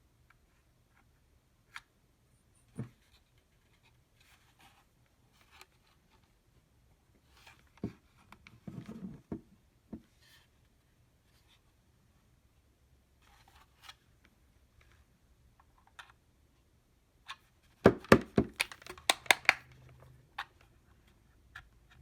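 Scattered clicks and plastic knocks from a USB cable plug and a Hart 20V power-source adapter being handled, with a short rustle about eight seconds in and a quick burst of loud rattling clicks near the end.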